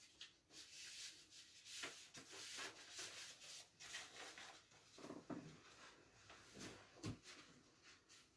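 Faint rustling of paper sheets being handled and shuffled, followed by a couple of soft low knocks near the end.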